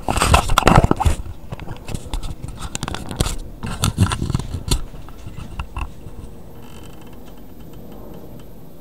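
Irregular scraping, rustling and clicking for about the first five seconds, then only a quieter, steady hum.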